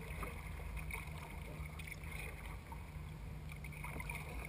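Water sloshing gently against a plastic sit-in kayak's hull as it is paddled along, heard close at the bow, over a steady low rumble.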